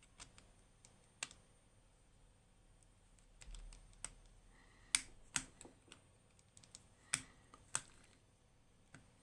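Small, sharp metal clicks and taps, about six spaced irregularly, from a screwdriver and tools worked against a lock while trying to turn out a stripped screw through a slot filed into it.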